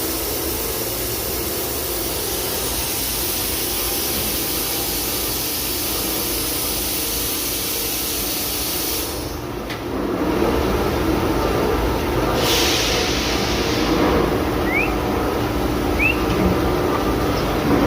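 Daito DNF-1050 CNC beam drill line running, a steady mechanical noise with a high hiss. About halfway the hiss drops away and a louder, lower machine noise takes over, with a short burst of noise about two-thirds in and two faint rising squeaks near the end.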